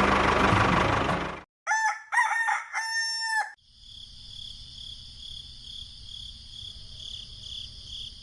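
A motor running, cutting off suddenly after about a second and a half, followed by a rooster crowing once in one long broken call. A fainter steady, pulsing high tone with a low hum runs after the crow.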